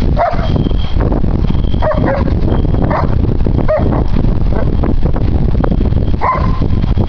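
German Shepherds yipping and barking in play, five short calls at uneven gaps, over a steady low rumble of wind on the microphone.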